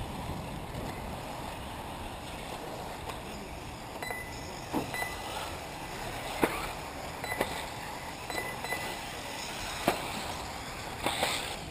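Electric 1/8-scale RC off-road buggies racing on a dirt track: a steady low rumble with several sharp clacks as the buggies land and strike the track, the loudest about six and ten seconds in, and a few brief faint high motor whines.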